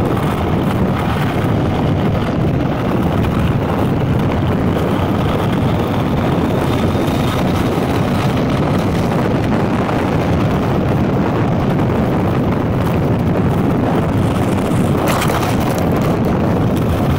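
Steady, heavy wind noise on the microphone of a handlebar-mounted camera on a moving Honda motorcycle, with vehicle and road noise underneath. A brief scuffing burst about fifteen seconds in, as something brushes the camera.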